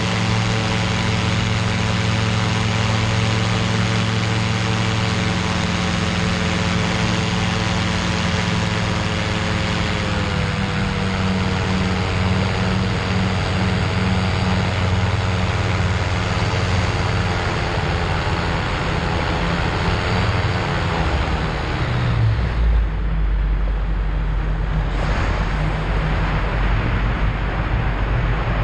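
Engine and pusher propeller of a Cygnet light sport amphibian trike in low flight, running steadily. The pitch drops a little as power comes back about a third of the way in, and again about two-thirds in. After that the engine tone sinks under a heavy low rumble.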